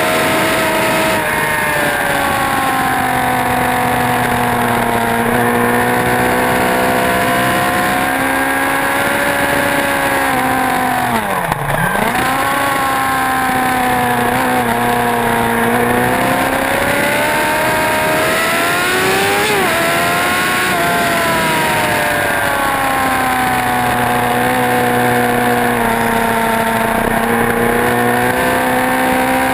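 Motorcycle engine running hard at high revs on a race track, its pitch rising and falling as it accelerates and backs off through the gears. About eleven seconds in the pitch drops sharply as it slows hard, then climbs again.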